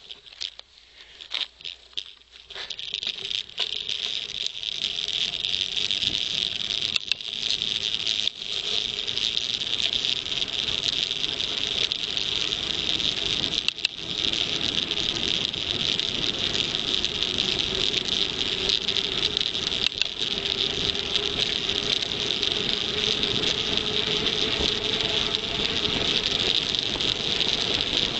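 A few knocks in the first couple of seconds, then the steady rush of a KTM Tombstone mountain bike coasting fast down a tarmac road: wind and tyre noise with a high, even buzz.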